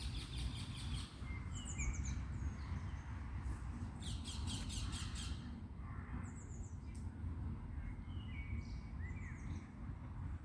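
Songbirds chirping and singing, with two bursts of fast, high trills, one at the start and one about four seconds in, and short falling whistled notes between them, over a low steady rumble.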